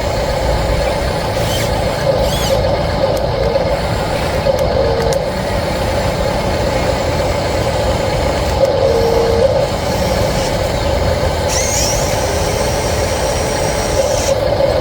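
Steady machine drone with a low rumble beneath it, as from an RC model construction vehicle working, with a few short higher whines rising and falling, the clearest about twelve seconds in.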